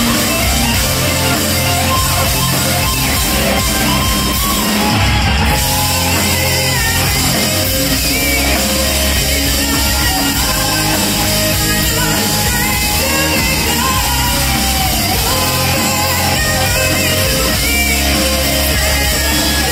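Live heavy metal band playing loud through a club PA: a distorted electric guitar lead with bends and vibrato over drums and bass, with a woman's voice singing over it.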